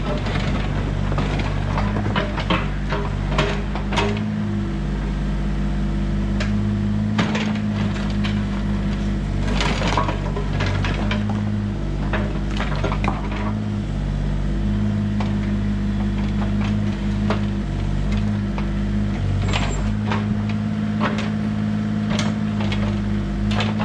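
Bobcat E32 mini excavator's diesel engine running steadily, its note growing louder in stretches as the arm and bucket work, with the bucket knocking and scraping against stones in a rubble pile several times.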